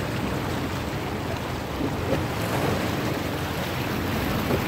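Zodiac tour boat's outboard motor running steadily, with sea water washing around the boat and wind on the microphone.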